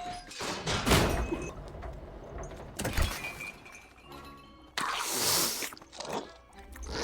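Film sound effects over music: a sharp impact about a second in, another about three seconds in followed by a short ringing tone, and a loud hissing burst about five seconds in.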